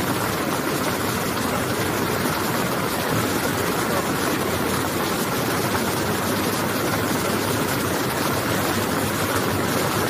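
Fast-flowing floodwater rushing past, a steady, even noise with no change in level.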